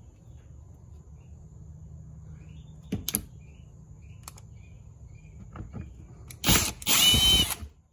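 Cordless drill with a T20 Torx bit backing out a wheel-well panel screw: a few light clicks, then near the end a short blip and about a second of whining motor.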